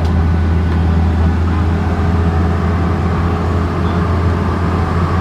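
Caterpillar 320C excavator's diesel engine running steadily, a loud even low drone with no change in speed.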